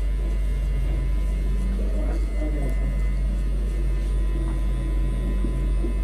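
Cordless electric hair clipper running with a steady, even buzz as it cuts short hair at the side of the head.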